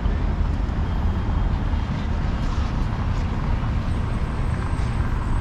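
Steady low rumble of city street noise with road traffic.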